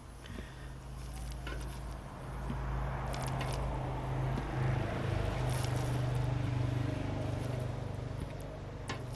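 Metal tongs clicking lightly a few times against a charcoal grill grate and a plate as grilled cucumber spears are lifted off, over a steady low engine-like hum that swells in the middle.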